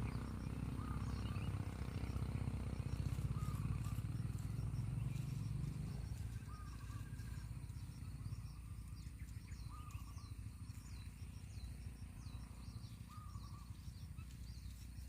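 Short bird calls repeating every few seconds, with many quick high chirps, over a low rumble that eases after about six seconds.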